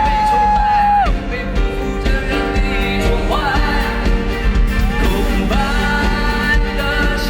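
Live concert music over the PA: a voice holds one sung note at the start, then sings further short phrases over the band's accompaniment.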